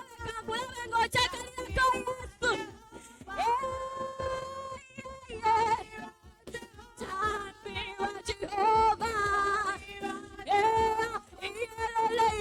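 Live praise-and-worship music: singing with long held notes over a beat of sharp percussive hits.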